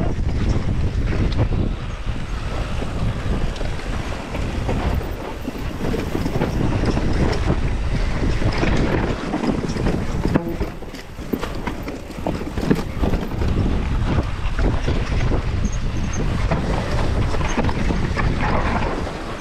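Wind buffeting the microphone on a mountain bike running down a dirt trail, with tyre noise and many short knocks and rattles from the bike over rough ground, one sharper knock about halfway through.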